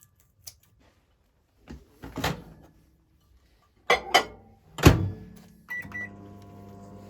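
Microwave oven being loaded and started: a few knocks and a loud door-closing thunk, short beeps from the keypad, then the oven's steady hum as it begins heating plastisol to melt it.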